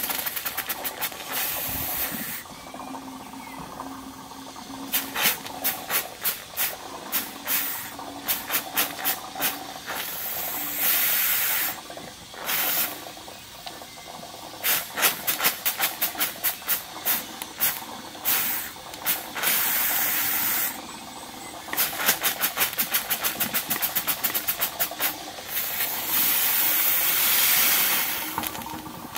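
Cotswold Heritage Perseus model steam engine running on live steam, its exhaust chuffing in even puffs, at times about two a second and at times quicker. The chuffing is broken by spells of steady steam hiss.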